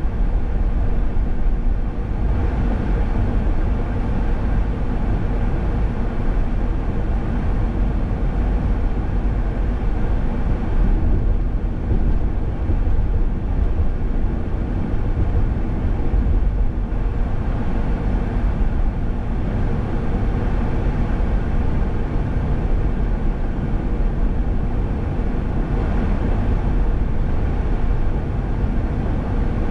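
Car driving at road speed: a steady low rumble of tyres on pavement and engine noise.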